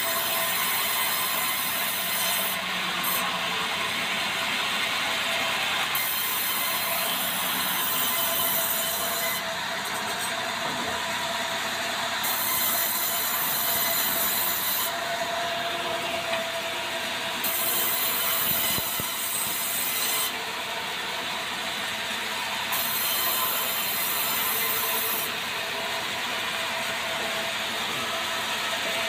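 Swing-blade sawmill running and cutting a barkless meranti log. A steady machine noise throughout, with a high hiss that comes and goes every two to three seconds.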